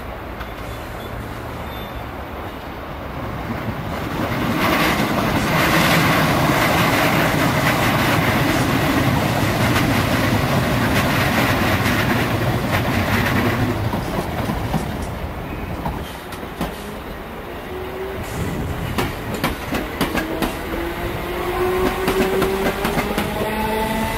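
Third-rail electric multiple unit running over pointwork. Its wheels clatter over joints and points, loudest from about four to fourteen seconds in. In the last several seconds the whine of its nose-suspended traction motors rises steadily in pitch as the train picks up speed.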